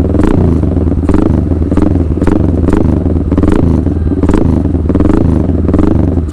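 Motorcycle engine breathing through a Villain Shorty open (short, straight-through) muffler, the throttle blipped over and over at idle, rising and falling in pitch about once a second. Deep but sharp exhaust note.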